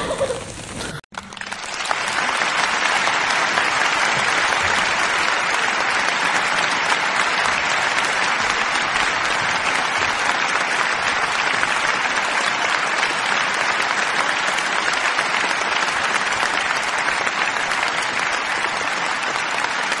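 A parrot sings briefly; about a second in it cuts off suddenly, giving way to steady applause from a crowd.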